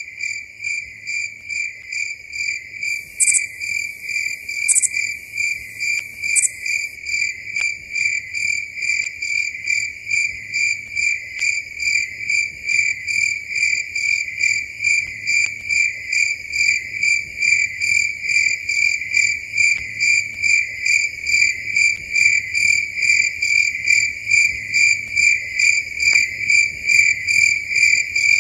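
Cricket chirping steadily at night, an even high-pitched pulse of about two and a half chirps a second, slowly growing louder. A few seconds in, a fainter, higher hiss with three short squeaks sounds briefly over it.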